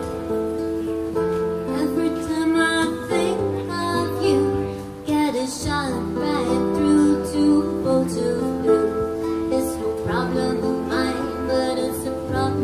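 Two acoustic guitars playing chords together, with a woman singing a melody over them from about two seconds in.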